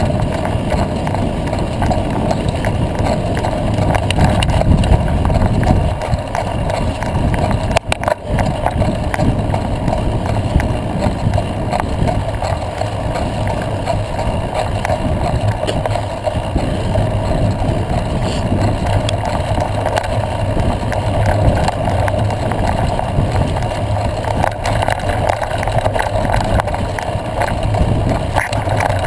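Steady rushing wind on the microphone and tyre rumble on a dirt road while riding behind a cyclist, with a short dip about eight seconds in.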